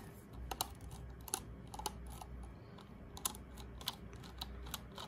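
Light, irregular clicks and ticks of a precision screwdriver turning a small screw out of the plastic battery cover in a toy's handle.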